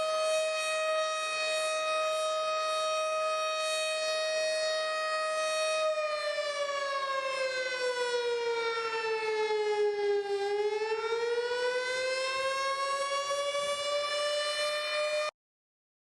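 Civil defense siren sounding a steady wail, then sliding down in pitch for about four seconds and climbing back up. It cuts off suddenly near the end.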